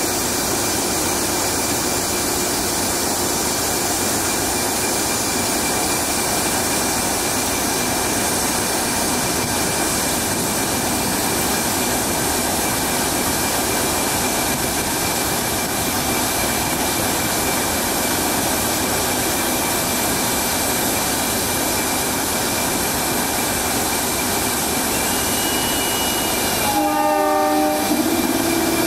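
Diesel locomotive running steadily at a standstill, with a constant high whine over the engine noise. A train horn sounds briefly near the end.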